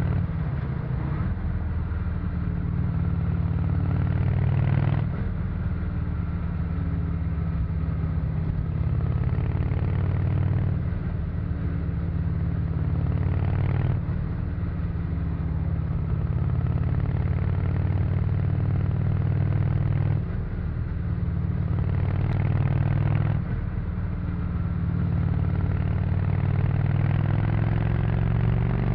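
Honda VT600C Shadow V-twin on its stock exhaust, heard onboard while riding. The engine note drops off briefly four times, as when the throttle is shut between gears, then climbs in pitch near the end as the bike accelerates.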